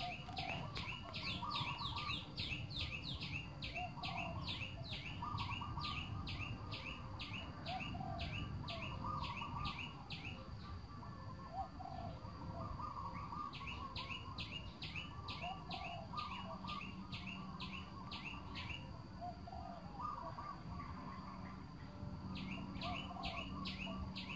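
Small birds chirping: one bird repeats a quick high chirp about three times a second in long runs that stop twice, while other birds call more softly and lower. A steady low rumble runs underneath.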